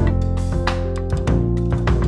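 Upbeat intro music with a steady beat of percussive hits under held pitched notes.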